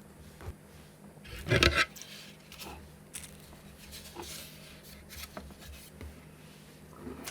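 Objects being handled and slid on a workbench: small clicks and rubs, with one louder scrape or rustle about a second and a half in.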